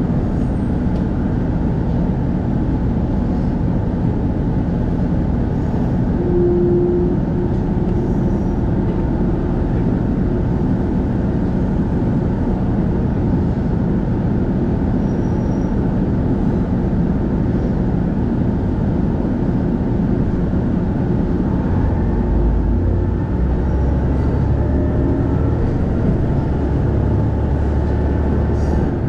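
KiHa E130 diesel railcar running steadily, heard from inside the passenger cabin: engine drone and the rumble of wheels on the rails. A brief steady tone sounds about six seconds in, and a deeper low hum comes in near the end.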